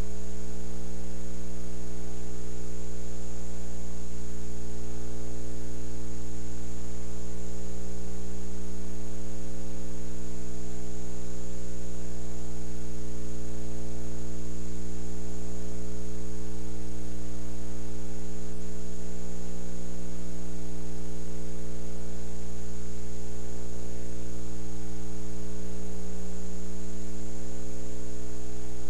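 Steady electrical mains hum with a stack of overtones, a thin high whine and a background hiss, unchanging throughout; no game or crowd sound can be picked out.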